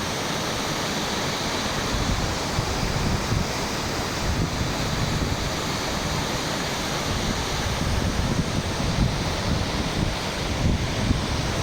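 Waterfall's falling water rushing steadily, with wind gusting over the microphone.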